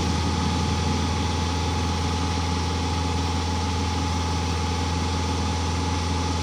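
Mini excavator's diesel engine idling steadily, with a thin steady whine above its low hum.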